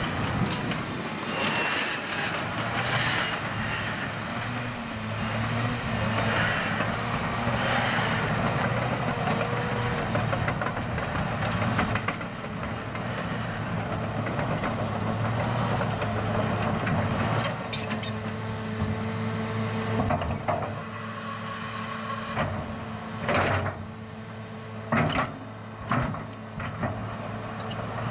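Caterpillar 963C track loader's diesel engine running steadily as the machine works, its pitch shifting slightly with load. A few sharp clanks come near the end.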